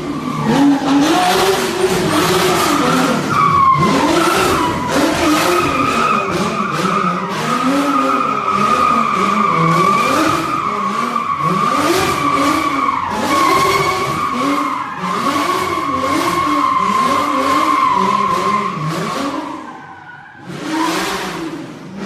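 Drift car doing donuts inside a workshop: its engine revs up and down again and again under throttle while the spinning rear tyres squeal continuously at a high pitch. Near the end the noise drops off, then comes back in a brief burst.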